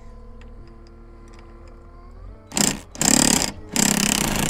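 Cordless impact wrench hammering in three short bursts, starting a little past halfway, as it works the bolts on a corrugated steel stock-tank section. Under it, a skid steer's engine runs steadily.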